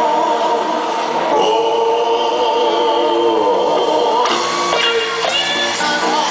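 R&B vocal group singing with a live band: long held harmony notes over guitar and keyboards, with a lead voice sliding in about four seconds in.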